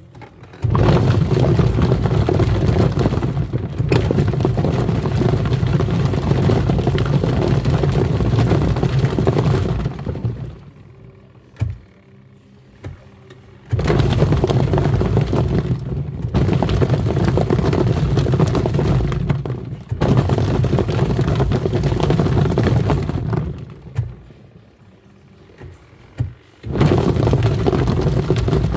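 Twin-tub washing machine's wash tub running: motor hum under churning, sloshing water and toys knocking in the tub. It stops twice for a few seconds and starts up again, as the wash cycle pauses between spins.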